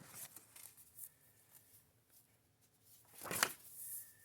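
Sketchbook page being turned: a soft paper swish a little after three seconds in, with faint paper handling and light ticks before it.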